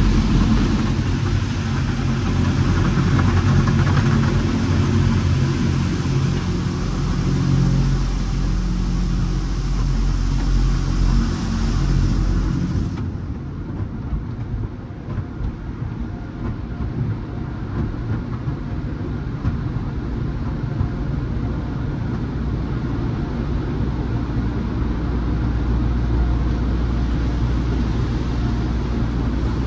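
Peco tunnel car wash heard from inside the car: water spray hissing over the glass and wash brushes working over a low rumble of machinery. About 13 s in the hiss drops away, leaving a duller rumble as cloth wash strips cover the windshield, and the spray picks up again near the end.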